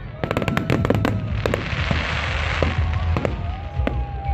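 Fireworks display: a rapid salvo of sharp bangs and cracks in the first second, then a crackling, fizzing spray from crackle shells in the middle, with thin whistles and further scattered bangs near the end over a low rumble.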